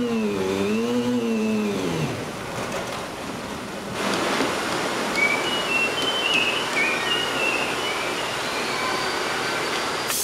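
Handheld electric spin-welding tool spinning a polyethylene plug against a polyethylene tank, so that friction melts the two together. At first its motor hum wavers, then slides down in pitch and dies away about two seconds in. From about four seconds in there is a steady hissing friction noise with faint high whines as the tool runs again.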